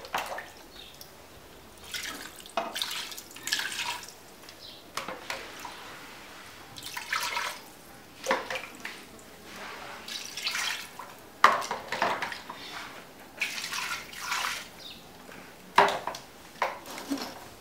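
Water splashing and pouring in uneven bursts as it is scooped with a plastic cup from a basin and poured into a steel pot of beef shank pieces. A couple of sharp knocks, about two-thirds of the way in and near the end.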